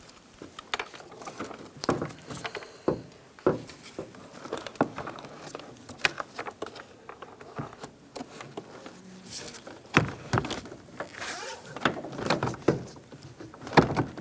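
Hyundai Accent's front interior door trim panel being handled and lined up against the door: irregular light clicks, taps and knocks with some rustling.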